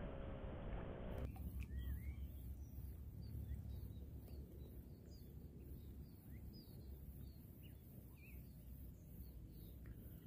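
Small birds chirping faintly, many short rising and falling calls scattered from about a second in, over a low steady rumble.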